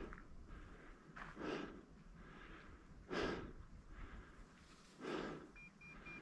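A person breathing hard while walking up a brushy slope, with a loud breath about every two seconds. Three short, faint high beeps come near the end.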